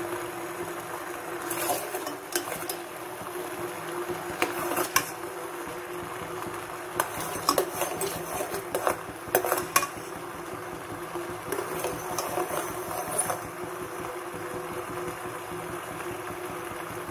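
A spoon stirring black sesame seeds and syrup in a steel pan, with scattered clinks and scrapes against the pan in bunches, over a steady hum.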